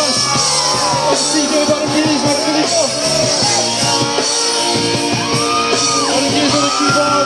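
Live band performance: music with a singer's voice gliding over it, loud and steady throughout.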